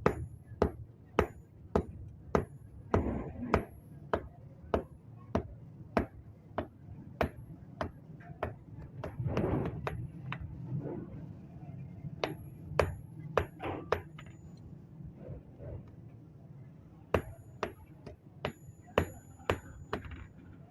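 Hand hammer striking iron on an anvil in steady blows, about one to two a second, each with a short metallic ring; the hammering pauses twice and resumes.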